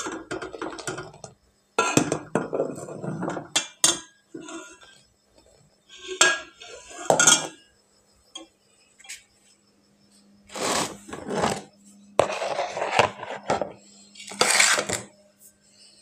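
Steel ladle stirring and scooping in a metal pot of milky tea, scraping and clinking against the pot in several separate bursts with short pauses between.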